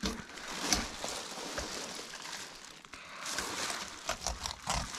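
A knife filleting a whitefish: soft slicing and scraping along the fish, with a few light knocks. The longest scrape comes a little after three seconds in.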